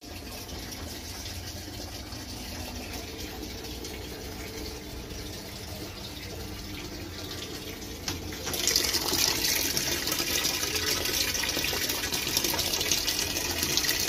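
Godrej top-loading washing machine filling with water: a stream from the inlet splashes into the empty drum, getting noticeably louder and brighter about eight seconds in.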